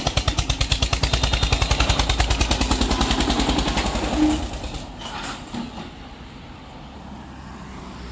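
Eicher tractor's diesel engine chugging with a fast, even exhaust beat as it passes close, then fading after about four seconds as it drives away.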